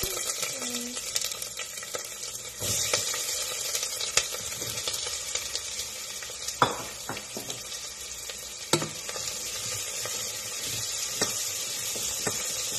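Chopped onion sizzling as it fries in hot oil in a stainless steel pan, a steady hiss that gets louder about two and a half seconds in. A few sharp knocks of the stirring utensil against the pan.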